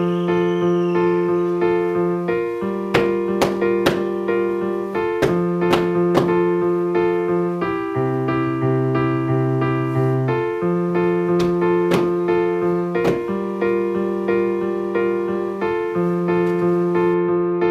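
Background music led by electric piano, with a steady bass line changing every couple of seconds and light percussive hits.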